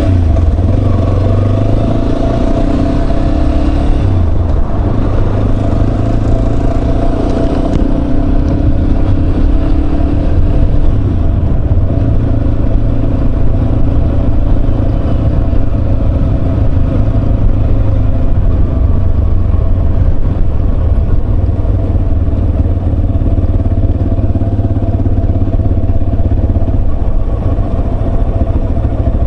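Yamaha Serow 250's single-cylinder four-stroke engine running while riding, with wind rush over it. The engine pitch slides up and down a little in the first ten seconds, then holds steady.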